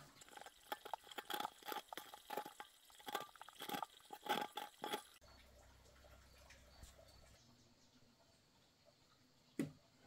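Water splashing and dripping in quick, irregular bursts for about five seconds, then an abrupt cut to quiet, with a single sharp knock near the end.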